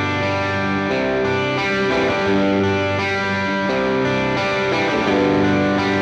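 Electric guitar played through a Maxon OD-808 overdrive pedal: overdriven chords, each held and changing every second or so.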